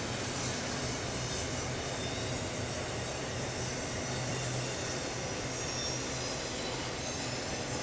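Intermodal freight train cars, double-stack containers and trailers on flatcars, rolling steadily past with a continuous rumble of wheels on rail. A thin, very high-pitched wheel squeal runs over it and drifts slowly lower in pitch.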